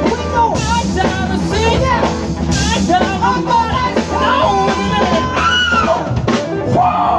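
Live band playing upbeat, loud music: a drum kit keeping a steady beat under a saxophone and trumpet horn section.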